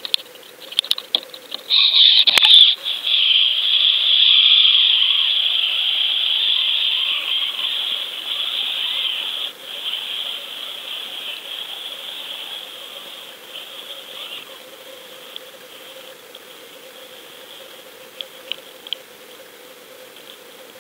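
A burst of loud knocks and water noise about two seconds in as the underwater camera goes under. Then a steady rushing hiss of water past the camera housing as it sinks with the jig, slowly fading, over a faint steady hum.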